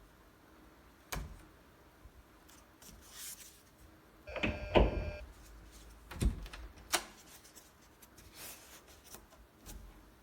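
A foam door pinch guard being handled on a door: a few soft knocks and clicks, with a brief squeaky rub about four to five seconds in.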